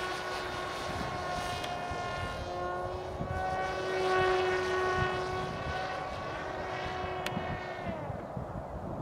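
Small electric flying wing's motor and propeller whining as it flies, a steady pitched hum. It grows loudest about four seconds in, then drops in pitch and fades near the end.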